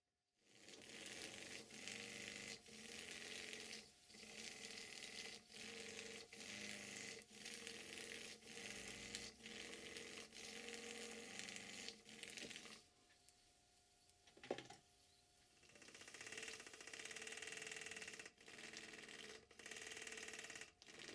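Small SVS twin oscillating cylinder model steam engine running on steam, a faint, fast mechanical chuffing and clatter. It stops for a few seconds past the middle, with a single sharp click, then runs again.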